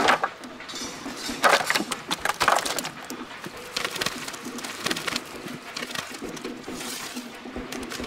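Whole onions, then tomatoes, tipped out of a stainless-steel pot and tumbling onto banana leaves on the ground: a run of irregular knocks, thuds and taps, the loudest about a second and a half and two and a half seconds in.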